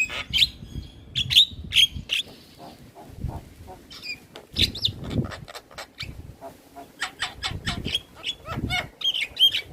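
Javan myna singing vigorously: quick runs of harsh, chattering and clicking notes in three bouts, with short pauses between.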